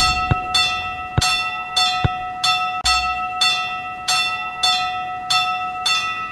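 Railroad crossing warning bell ringing in a steady, even rhythm of about three strikes every two seconds, each strike ringing on into the next.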